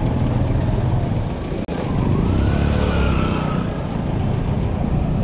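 Road traffic: motor vehicle engines running close by, as a steady low rumble. About two seconds in, one engine rises and then falls in pitch as it revs or passes. The sound cuts out for an instant just before that.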